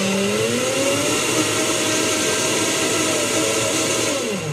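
Countertop blender running on a thick mix of frozen banana and almond milk. Its motor pitch rises shortly after the start, holds steady, then winds down near the end.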